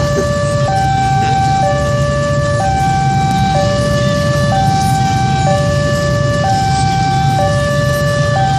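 Railway level-crossing warning alarm: an electronic two-tone signal alternating steadily between a lower and a higher pitch about once a second, the sign that a train is approaching the crossing. A steady low rumble runs underneath.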